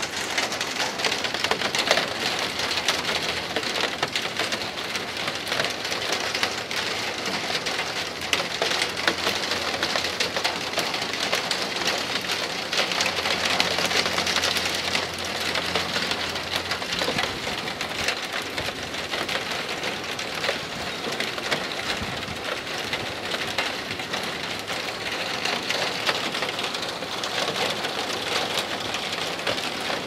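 Steady rain: a dense, even hiss of many small drops.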